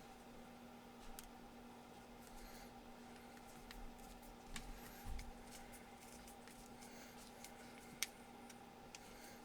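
Faint, scattered clicks and taps of a wooden revolver grip panel being handled and fitted against the metal frame, with one sharper click about eight seconds in, over a steady low electrical hum.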